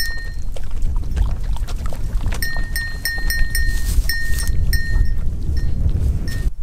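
Bell on a German shorthaired pointer's collar ringing in short, irregular dings as the dog drinks from a squeeze bottle, a quick run of rings in the middle, over a steady rumble of wind on the microphone.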